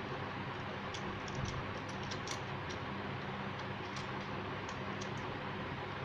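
Small irregular clicks and ticks of fingers and wire working at the terminals of a plastic switch board, over a steady low hum.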